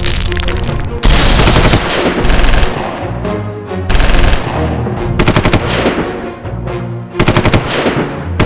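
Rapid machine-gun fire in several bursts, with a loud burst of noise about a second in, over background music.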